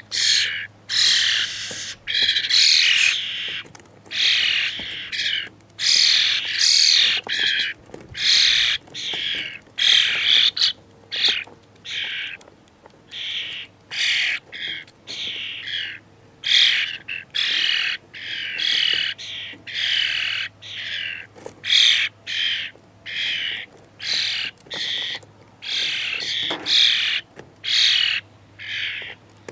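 Fledgling European starlings begging for food with harsh, rasping squawks, repeated over and over at about one a second.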